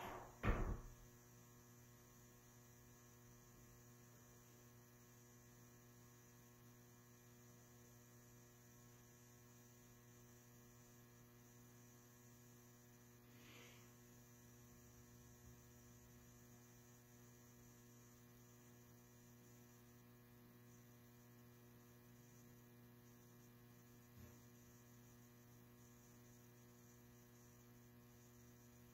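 Near silence: a steady low electrical mains hum of the room, with a single knock about half a second in.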